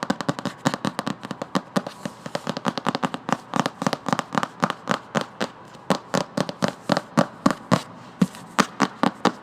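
Fingernails tapping quickly on a book, a fast run of sharp taps that settles into a steadier rhythm of about three taps a second in the second half.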